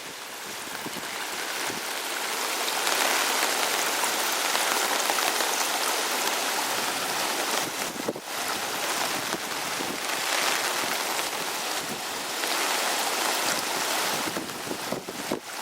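Floodwater rushing down a road in heavy rain: a dense, steady hiss of water that builds over the first few seconds and dips briefly about eight seconds in and again near the end.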